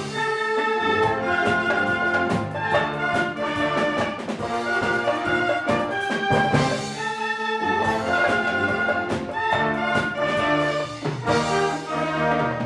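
A wind orchestra playing, with brass to the fore: sustained chords and moving lines over steady percussion hits.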